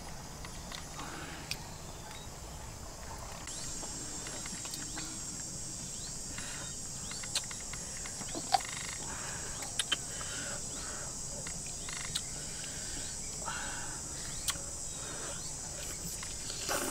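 A steady high-pitched insect chorus that comes in a few seconds in and holds, with scattered small clicks and smacks from boiled duck being torn apart by hand and eaten.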